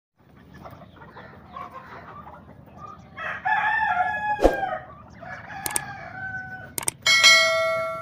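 Poultry calling in a yard: chickens clucking, with a long, loud rooster crow about three seconds in. Near the end come a couple of sharp clicks and a bright ringing bell chime that fades, the sound effect of a subscribe-button animation.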